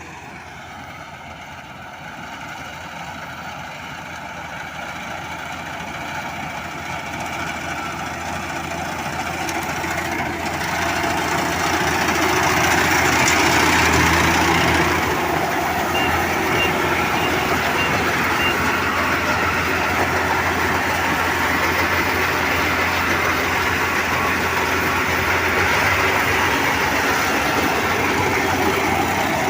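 Combine harvester's diesel engine and working machinery running steadily, growing louder over the first dozen seconds as it comes closer, then holding loud and even. A short run of faint high beeps sounds about halfway through.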